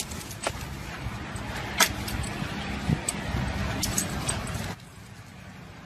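A dog's metal collar tags and leash clip clicking and jingling as it climbs out of a car, over a steady low rumble.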